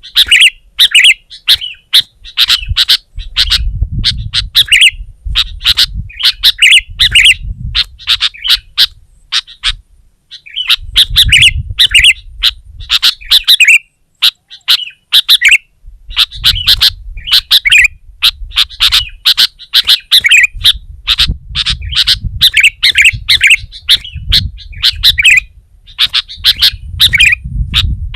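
Sooty-headed bulbul singing in rapid, busy bursts of loud chirping phrases, in the excited full song that bird keepers call 'gacor'. Its short bright notes come in quick runs, with brief gaps, over a low rumble that comes and goes.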